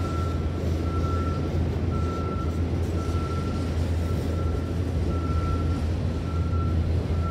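Freight train's autorack cars rolling past a grade crossing, a steady rumble and wheel noise. Over it the crossing's Safetran Type 2 electronic bell sounds a high tone about once a second.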